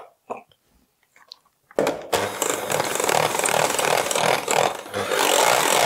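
Electric hand mixer with wire beaters switched on about two seconds in after a few faint clicks, whisking a yogurt and sour-cream filling in a stainless steel bowl with a steady motor whir and the beaters churning through the mix.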